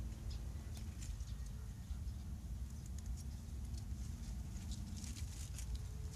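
Bok choy leaves rustling and stems snapping as they are picked by hand: scattered crisp crackles and clicks, more of them near the end, over a low rumble.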